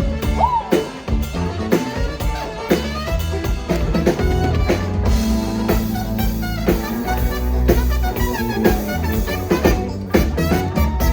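Live Latin pop band playing an instrumental passage, with drum kit and percussion to the fore and sustained melody notes over them.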